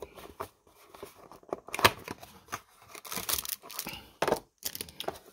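A sealed football trading-card box being torn open and handled: irregular tearing and crinkling of its wrapping and cardboard, with a sharp rip about two seconds in.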